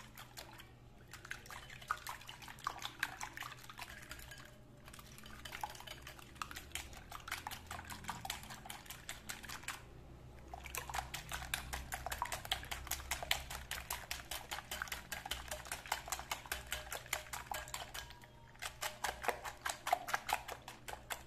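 Balloon whisk with silicone-coated wires beating egg whites to a froth in a glass bowl by hand: a fast, even run of light taps and wet swishes as the wires strike the glass, stopping briefly a few times.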